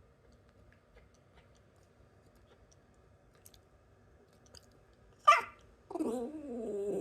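Quiet room tone, then about five seconds in a single sharp, short sound, followed by a dog's drawn-out vocalisation that wavers up and down in pitch, a whine-like grumble.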